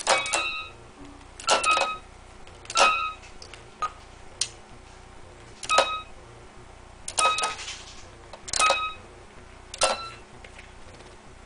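Children's toy electronic keyboard sounding short beeping notes as a dog's paws press its keys, each with a plastic click. About eight notes, one every second and a half or so.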